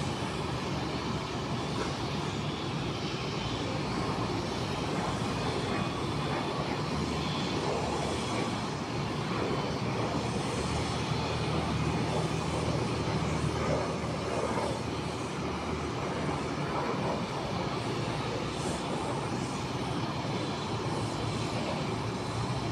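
Jet airliner engines running steadily at taxi power, heard as a constant even rumble and hiss with no distinct events.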